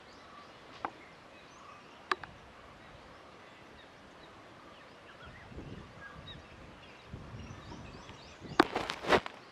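Quiet open-air ambience with faint scattered bird chirps and two single sharp clicks. Near the end comes a short, loud cluster of clicks and knocks.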